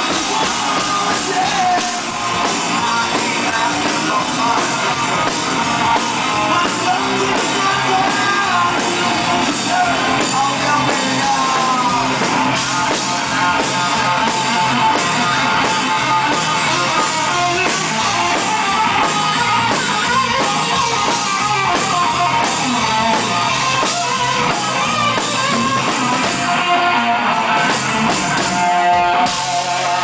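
Live rock band playing loud: electric guitar, drum kit and a male voice singing into a microphone.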